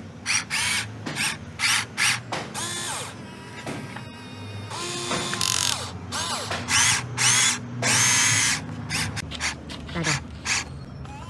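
Small electric motors of a radio-controlled excavator whining in many short bursts, each rising in pitch as it spins up and falling as it stops, as the controls are worked in quick jabs.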